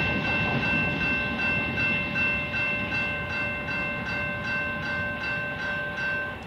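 Electronic railroad crossing bell (General Signals Type 2) ringing at about three strokes a second, then stopping near the end as the train clears the crossing. Under it, the rumble of the passing freight train fades away.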